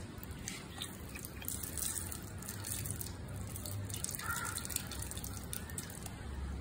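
Water dripping and lightly splashing from a wet, freshly washed dog onto the floor.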